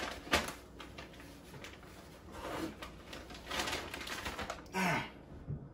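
Crinkling and rustling of a paper fast-food bag being handled, in a string of short crackles. Near the end comes a short throaty vocal sound that falls in pitch.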